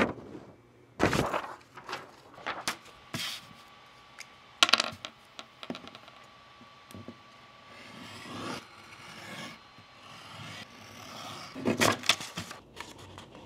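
Paper being handled and cut with a craft knife on a wooden desk: a run of sharp taps and knocks, then a few seconds of the blade scraping across the sheet, then a quick cluster of taps near the end.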